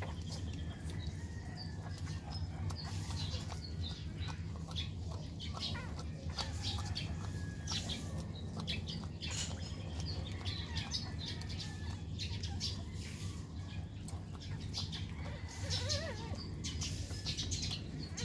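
Newborn Shih Tzu puppies nursing, with many faint, short high squeaks and clicks over a steady low hum. A brief wavering whimper comes near the end.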